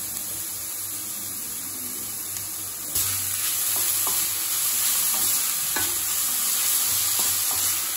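Grated carrot and onion sizzling in oil in a stainless steel kadai while being stirred with a spatula. The sizzle gets louder about three seconds in, with a few light scrapes of the spatula against the pan.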